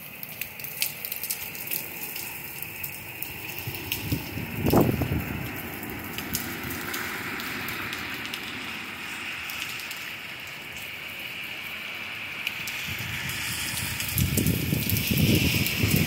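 Heavy rain pouring steadily, with many sharp drips crackling on nearby surfaces. Strong wind gusts buffet the microphone with a low rumble about five seconds in and again near the end.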